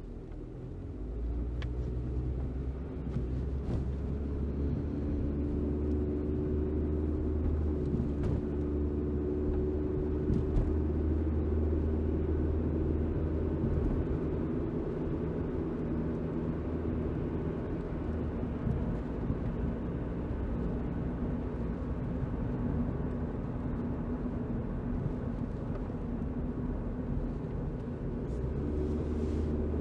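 Car driving at speed, heard from inside the cabin: a steady engine drone with tyre and road rumble. It swells over the first few seconds and then holds steady.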